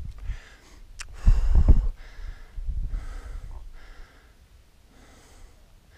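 A person breathing hard, a series of noisy breaths. There is a sharp click about a second in and a low rumble just after it.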